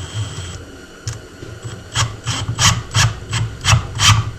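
A long trim screw being driven through a deer skull into a wooden board: about eight short, noisy strokes in quick succession, roughly three a second, in the second half.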